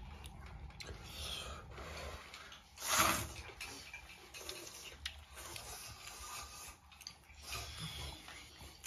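A man eating hand-rolled noodles: slurping them up and chewing, with one loud slurp about three seconds in.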